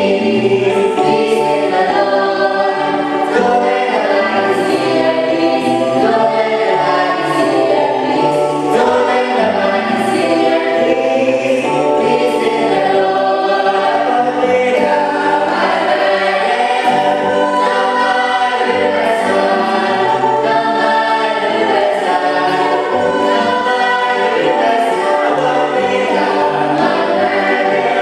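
A choir singing a gospel hymn, several voices in harmony holding sustained notes.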